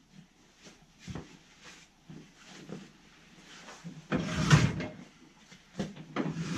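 Footsteps and knocks on wooden barn floorboards, with a louder cluster of close knocks and rustling about four seconds in and again near the end.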